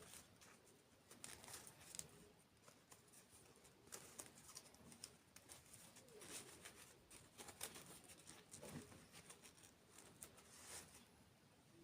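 Faint close-miked eating sounds: irregular small clicks and crackles of dessert being bitten and chewed.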